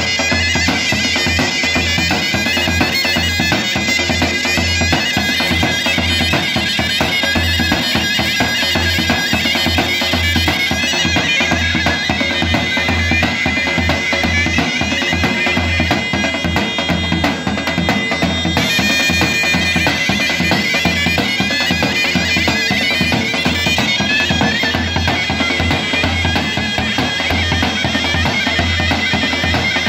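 Two zurnas, loud double-reed folk shawms, playing a melody together over a steady beat on a large tapan bass drum struck with a beater.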